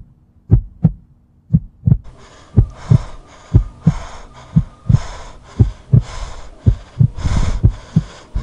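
Heartbeat sound effect: pairs of deep thumps, lub-dub, about once a second. From about two seconds in, a pulsing hiss runs underneath the beats.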